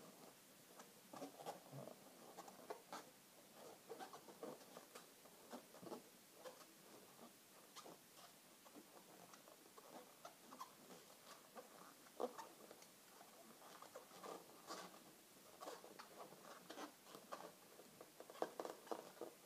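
Faint, irregular squeaks and rubbing of latex 260 modelling balloons as hands twist and bend them.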